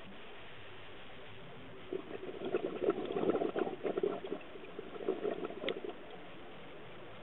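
Scuba diver's exhaled bubbles heard underwater: a burst of bubbling and crackling that starts about two seconds in and lasts about four seconds, over a steady underwater hiss.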